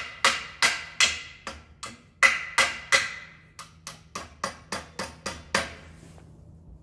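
Hammer driving nails into an old wooden fence-post board: a run of about sixteen sharp blows, each with a short ring, two to three a second. The blows get lighter and quicker in the second half and stop about a second before the end.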